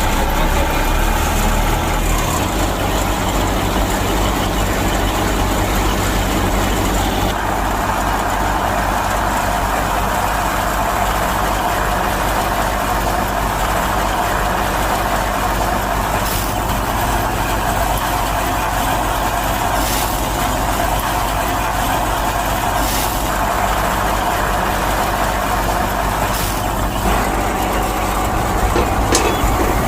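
Homemade mini wheat thresher running steadily under power, a constant mechanical drone with a few brief ticks.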